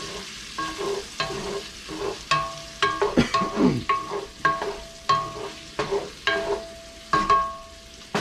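Smoked sausage sizzling as it browns in a metal pot while being stirred: a utensil scrapes and knocks against the pot about twice a second, the pot ringing briefly after each knock.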